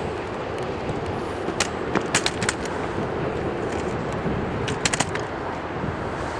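Train passing at close range: a steady rumble of wheels on rail with two clusters of sharp clicks, about two seconds in and again about five seconds in.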